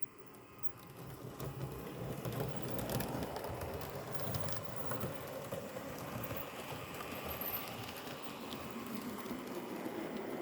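Roco model V 180 diesel locomotive with its sound decoder playing diesel engine sound. The sound swells over the first second or two, then runs steadily, with light clicking.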